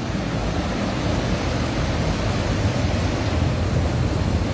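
Steady rush of a fast-flowing river running over rocks, with a low rumble underneath.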